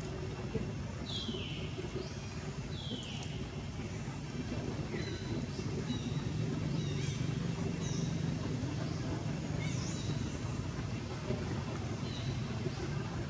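Short, high-pitched calls that fall in pitch, repeated at irregular intervals, over a steady low engine-like rumble.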